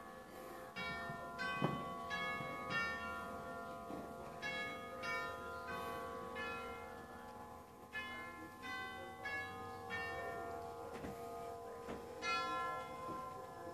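Bell-like chimes: runs of struck, ringing notes about two a second, in phrases with short pauses between them, over held ringing tones.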